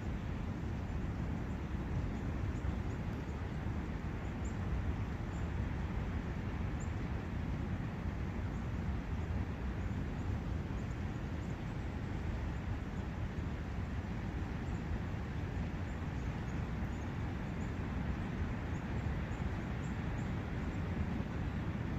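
Steady rushing of a forest brook, a continuous even wash of water sound, with a few faint, brief high chirps from birds scattered through.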